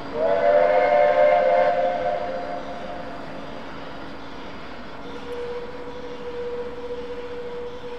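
Whistle of the ex-SNCF 141R 1244 steam locomotive: one blast of several tones sounding together, rising slightly as it opens, held for about two seconds and then fading away.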